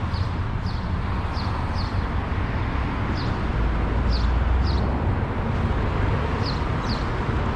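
Steady street traffic noise with a low rumble, and a small bird giving short, high, falling chirps about once or twice a second.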